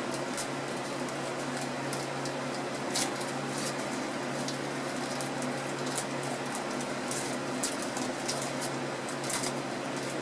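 Candy-bar wrapper crinkling and crackling in short, irregular bursts as it is torn open by hand, over a steady background hum.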